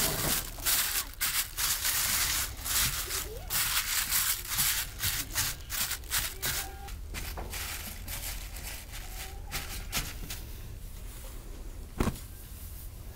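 Thin plastic bag crinkling and rustling in quick strokes as hands press it down over dough in a bowl, dying away about halfway through. A single sharp click near the end.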